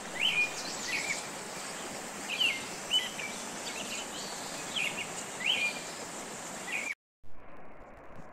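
A bird calling repeatedly with short, upswept chirps, several to the second at times, over a steady outdoor hiss. The sound cuts off abruptly about seven seconds in.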